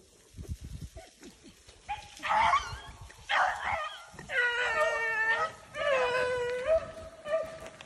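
Beagle baying on a rabbit's track: starting about two seconds in, a string of long, drawn-out bawls about a second apart, the voice of a hound running a rabbit.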